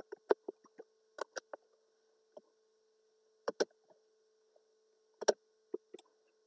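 Computer keyboard keys and mouse buttons clicking irregularly: a quick run of taps in the first second and a half, then scattered single clicks, over a faint steady hum.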